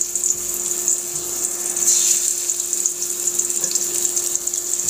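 Hilsa fish pieces sizzling steadily in hot oil in a frying pan as they are laid in to fry, with a steady low hum underneath.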